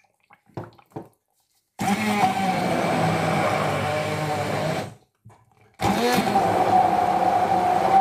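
Hand-held immersion blender running in a plastic beaker, puréeing fruit with a little water. A few faint clicks come first, then the blender runs with a steady whine for about three seconds, stops for about a second, and starts up again.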